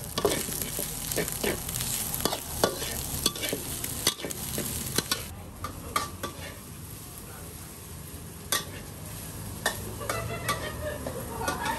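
A metal spatula scraping and clanking against a wok while fried rice with shrimp is stir-fried, over a steady sizzle. The sizzle eases off about halfway through, leaving sparser spatula strikes.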